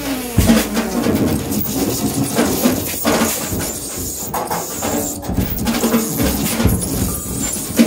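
Free improvised music: a dense, shifting texture of clattering percussion knocks and clicks mixed with wavering, squeaking rubbed tones, with no steady beat.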